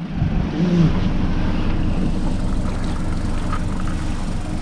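Fishing boat's motor running steadily underway on the lake, an even hum with water and wind noise.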